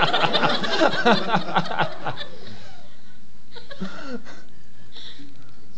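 People laughing, loudest and densest for about the first two seconds, then dying down to a few scattered chuckles.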